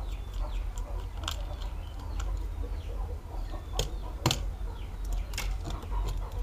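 Small sharp clicks and taps of a precision screwdriver and tiny screws on a phone's frame and a plastic parts tray, the loudest a little over four seconds in, over a steady low hum, with birds chirping in the background.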